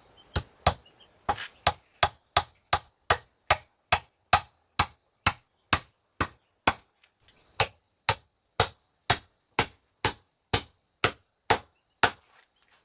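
Steady, rhythmic blows of a hand tool striking wood, about two a second, with a short break about seven seconds in.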